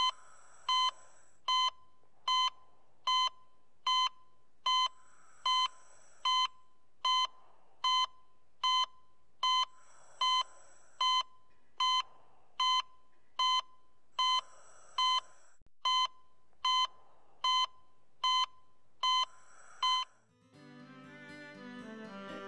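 Hospital patient monitor beeping steadily at one high pitch, a little more than one beep a second, with soft whooshes every couple of seconds between beeps. The beeping stops about 20 seconds in and string music begins.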